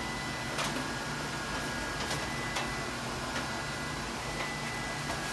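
Steady fan hum with a faint high-pitched whine, with a few light clicks and taps from handling the equipment scattered through it.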